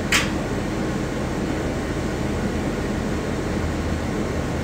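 Bus interior noise: a steady low rumble and hum of the bus running, with one brief hiss just after the start.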